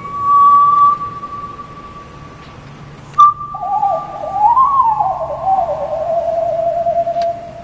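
Voice artist's vocal performance in high, pure, whistle-like tones: a steady held note, then after a sharp click about three seconds in, a wavering melodic line that settles into a lower sustained note.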